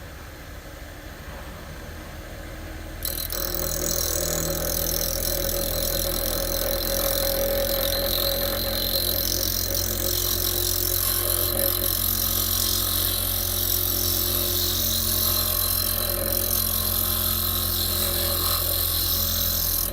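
Bench grinder motor running with a steady hum; about three seconds in, a harsh, steady grinding hiss starts as a worn diamond wheel is held against the grinder's abrasive wheel, flattening its wavy face.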